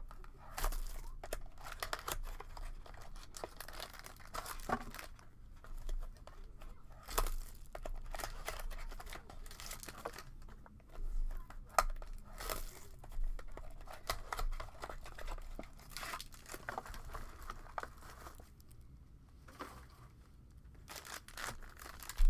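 Plastic wrapping being torn and crinkled in irregular crackling rustles as a sealed box of baseball cards and its packs are opened.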